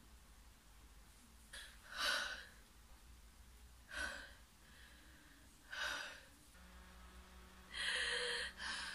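A woman's gasps and sharp breaths, several times about two seconds apart, with louder breathy sounds near the end, in excited reaction.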